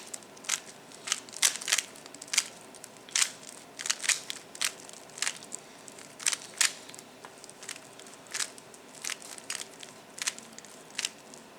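A Rubik's Cube being turned quickly by hand: a run of sharp plastic clicks as its layers snap round, uneven, about two or three a second.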